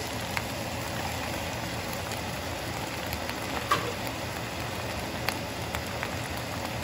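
Freshly added chopped cabbage sizzling in hot oil in a stir-fry pan: a steady hiss with a few sharp pops, the loudest about halfway through.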